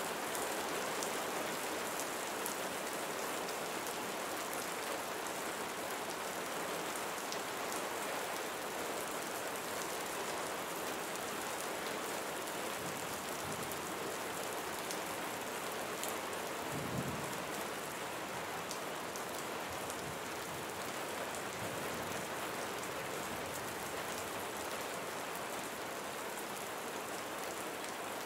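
Steady rain falling, an even hiss with fine patter of drops. About two-thirds of the way through there is one soft low thump.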